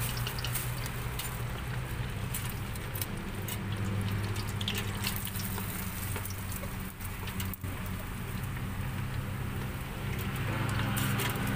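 Skewered meatballs deep-frying in a steel pot of hot oil: a steady sizzle, with scattered clicks of metal tongs against the pot and skewers. A steady low hum runs underneath.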